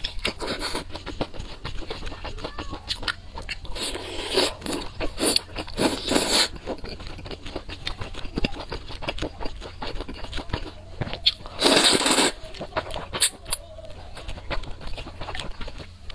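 Close-miked eating of noodle soup: steady chewing and wet mouth clicks, broken by several loud slurps, the longest about twelve seconds in. A steady low hum runs underneath.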